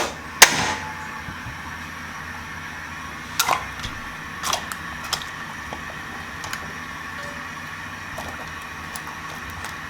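A few sharp knocks and clicks of hard objects being handled. The loudest comes about half a second in, with more around three and a half and four and a half seconds, over a steady faint hum.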